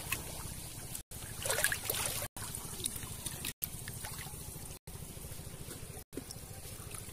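Pond water sloshing and trickling around a person wading chest-deep, a little louder about one and a half seconds in. The sound cuts out briefly about once every second and a bit.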